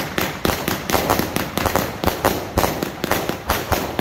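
Consumer aerial firework going off, launching shots in quick succession that burst overhead: a rapid, irregular string of bangs, several a second, over continuous crackling.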